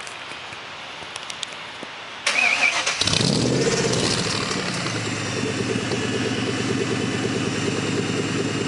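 Factory Five Shelby Cobra replica's V8 being started: a few faint clicks, then a bit over two seconds in the starter cranks, the engine catches with a quick rev and settles into a loud, gurgling, lumpy idle.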